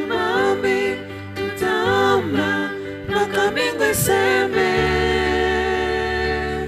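Gospel worship song: voices singing a flowing melody over sustained keyboard and bass chords, ending on a long held chord about two-thirds of the way through.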